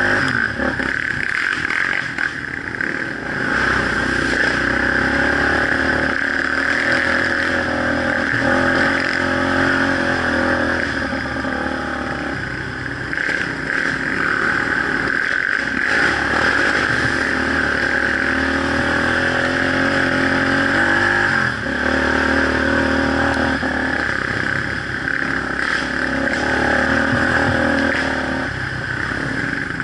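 Quad (ATV) engine heard from on board, revving up and down with the throttle as it rides a rough dirt trail, with clatter from the bumps.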